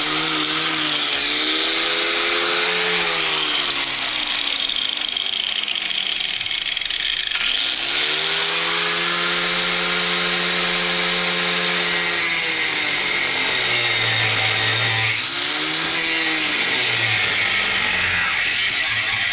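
Angle grinder cutting steel from the four-wheeler's frame, run in three bursts; each time the motor whine rises, holds and winds back down, over a steady hiss from the cut.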